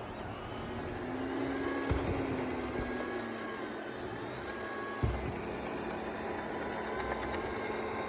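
Panasonic RULO robot vacuum running with a steady motor and brush whir, the normal sound of a unit without the abnormal noise. A low hum swells and fades in the first few seconds, and there are two short knocks about three seconds apart.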